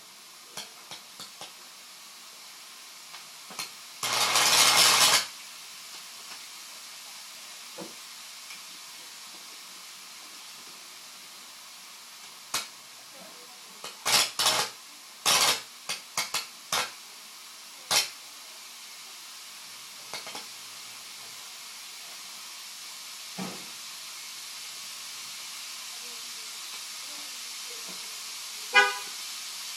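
High-voltage arc from a microwave-oven transformer cracking across a spark plug gap in a steam cleaner's jet: one loud buzzing burst of about a second some four seconds in, then a run of short sharp cracks midway through and a few scattered ones near the end. Under it a faint hiss grows slowly louder.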